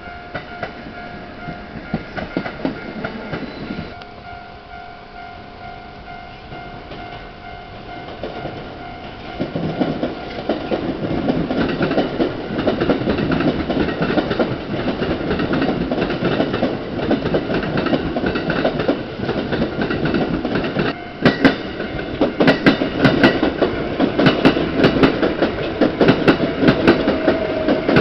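Level-crossing alarm bell ringing steadily. Then electric commuter trains pass close by, rumbling louder from about ten seconds in, with the wheels clacking rhythmically over rail joints and points in the second half and a motor whine rising near the end.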